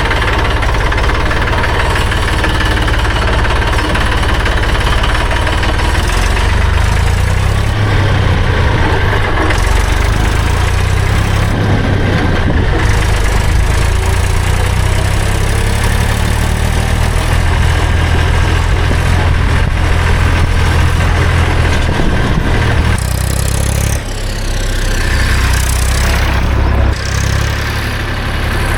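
Tractor diesel engine running steadily under a low, heavy drone, heard from the driver's seat. Its sound dips and shifts briefly about two-thirds of the way through.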